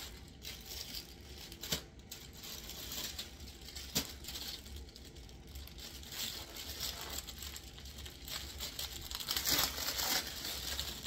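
Packaging crinkling and rustling as it is handled, with a few sharp clicks, the rustling growing louder near the end.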